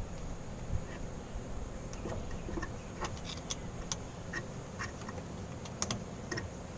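Light, irregular clicks and taps of hand tools on metal hose clamps being fitted to diesel fuel lines, over a faint steady hum.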